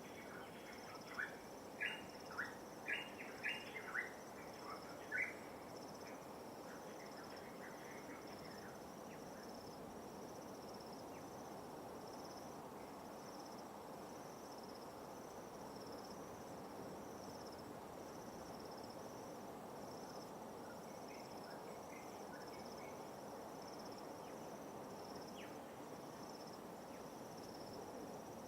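Steady high insect trill, pulsing evenly, over a soft wash of light waves. A bird gives a quick run of about seven short, sharp calls in the first five seconds, with a few fainter calls later.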